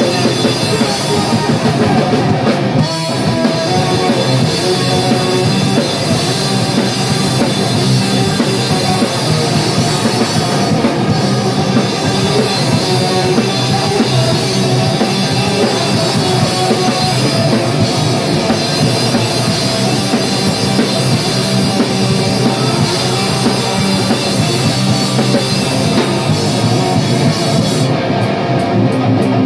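Live powerviolence band, a distorted electric guitar and a drum kit, playing loud and fast without letup. Near the end the top end thins out.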